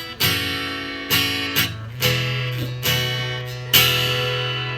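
Acoustic guitar playing the closing chords of a song: a handful of strummed chords, each left to ring and fade.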